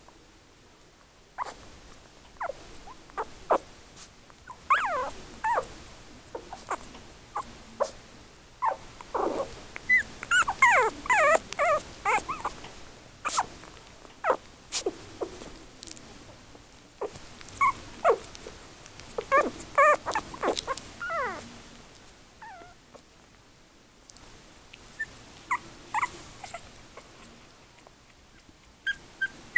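Three-week-old Yorkshire Terrier puppies whimpering in short, high cries, scattered at first and overlapping in two busier spells about ten and twenty seconds in.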